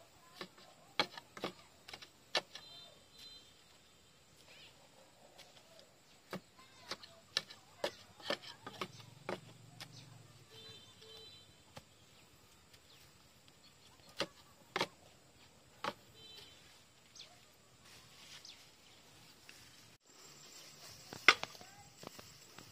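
Wooden stick jabbed into the soil at the foot of a wooden post, making irregular sharp knocks and dull thuds in short clusters, with a louder knock near the end.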